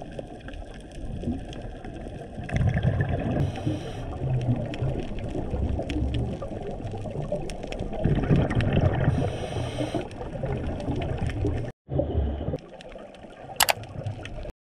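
Muffled, gurgling water noise with scattered clicks, like a camera's sound in or at the water. It cuts out abruptly about two-thirds of the way through, then resumes more quietly.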